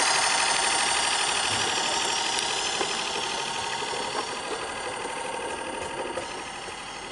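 Small live steam garden-railway locomotive running with its train: rapid, even exhaust beats over a steady hiss, fading as it pulls away along the track, with a few light clicks later on.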